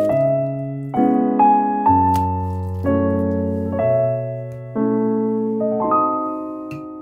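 Background piano music: notes and chords struck about once a second, each ringing out and decaying, the playing thinning out and fading toward the end.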